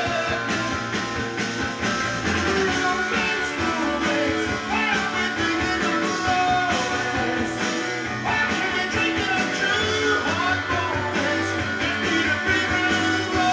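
Rock song with guitar and singing, played back from a vinyl LP on a Dual 1245 belt-drive turntable.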